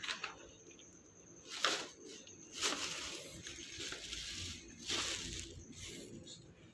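Plastic bag rustling and crinkling as it is handled, in several noisy bursts, the longest from under three seconds in to past four seconds.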